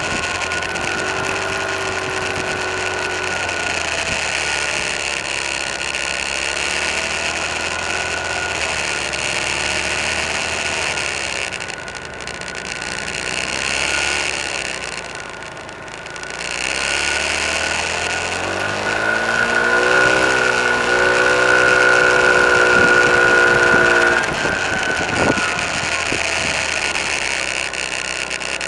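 Car engine and road noise heard from inside the cabin while driving. It quietens briefly in the middle, then the engine revs rising in pitch and runs loudest as the car accelerates, easing off shortly before the end.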